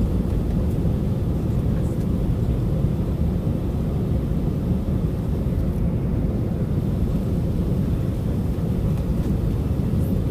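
Steady low rumble of an Airbus A319's jet engines, heard from inside the passenger cabin.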